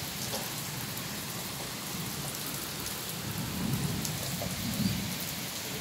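Steady monsoon rain falling on a wet concrete courtyard, with a low rumble swelling up a little past halfway through.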